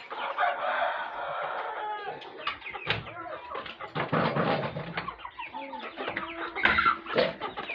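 Chickens clucking and calling in a flock, many overlapping calls, with a rooster crowing among them.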